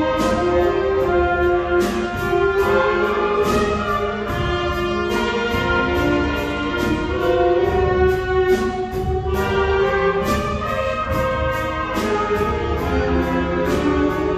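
Children's elementary-school wind band playing a piece in a concert hall: sustained brass and woodwind lines, with percussion accents.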